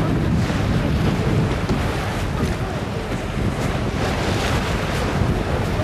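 Wind buffeting the microphone over the steady rush of water around a moving boat.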